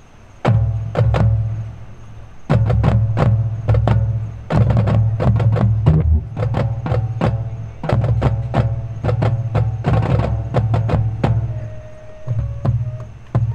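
High school marching band starting its show: loud, accented percussion hits from drums and the front ensemble's mallet instruments, with a deep low sound under them, coming in about half a second in.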